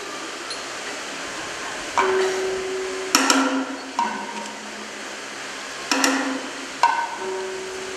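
Kathakali metal percussion: a bell-metal gong (chengila) and small hand cymbals (ilathalam) struck sparsely, about once every second or two, each stroke leaving a clear ringing tone.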